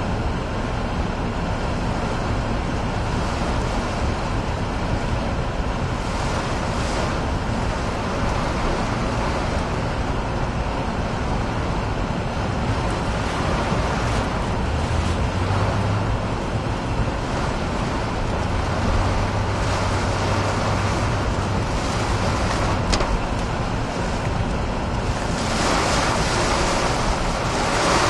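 Hurricane-force wind and driving rain heard from inside a moving car, as a steady rushing noise over the car's engine and tyres on the flooded road. A louder rush of wind and rain comes near the end.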